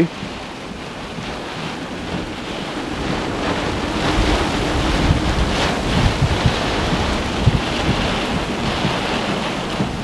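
Severe squall-line wind gusts, with wind-driven rain, rushing and buffeting the microphone. The noise builds over the first few seconds and stays strong.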